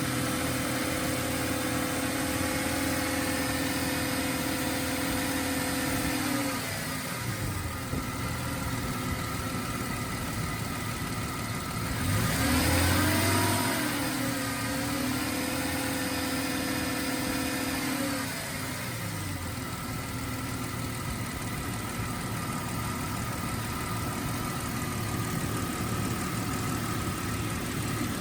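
Jeep Cherokee XJ engine running warm at raised revs, dropping back to idle about six seconds in. It is revved up again around twelve seconds, held there, and settles back to idle at about eighteen seconds. The revving helps purge trapped air from the cooling system once the thermostat is open.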